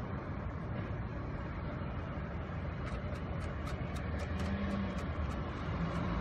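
Steady low rumble of road traffic, with a run of small sharp clicks from about halfway on.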